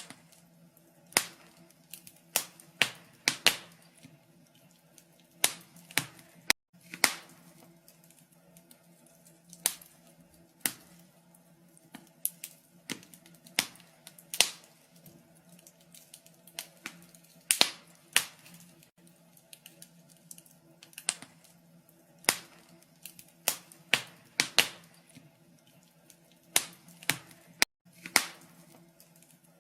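Wood fire crackling in a fireplace: irregular sharp pops and snaps, a few a second and some much louder than others, over a faint steady hum.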